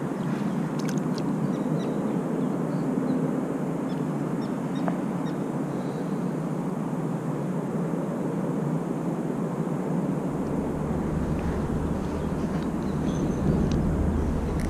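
Steady low outdoor rumble with a few faint high chirps, and a deeper rumble joining about ten seconds in.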